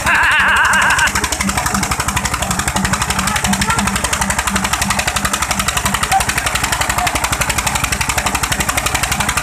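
Two Eicher 242 tractors' single-cylinder diesel engines running hard under full load in a tractor tug-of-war, with a steady, rapid thudding beat. A man shouts in the first second.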